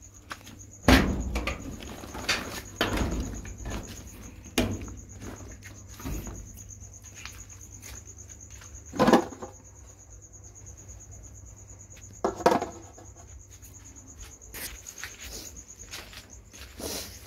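Night insects chirring steadily in a high, continuous trill. Over it come scattered short rustles and knocks, the loudest about one, nine and twelve seconds in.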